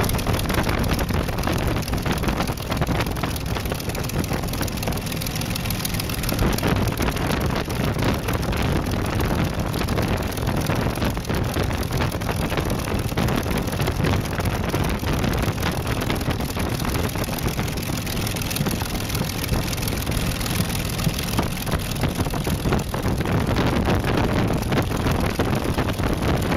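P-40 Warhawk's V12 piston engine running steadily at low power as the fighter taxis, heard from inside the cockpit along with wind noise on the microphone. It gets a little louder near the end.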